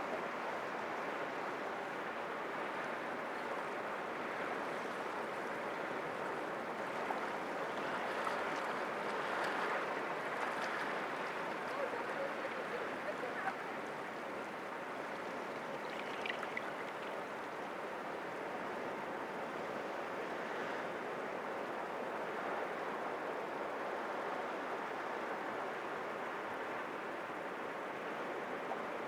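Sea waves washing over rocks, a steady rushing surf that swells a little about a third of the way in.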